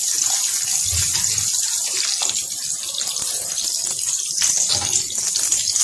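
Paratha dough shallow-frying in hot oil on a flat black iron pan: a steady sizzle with light crackling.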